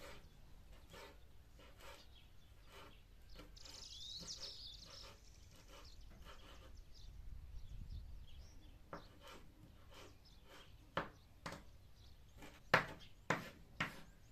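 A chef's knife chopping fresh parsley on a bamboo cutting board in a run of quick, light knocks. The chops grow sharper and louder over the last few seconds. A brief high chirp comes about four seconds in.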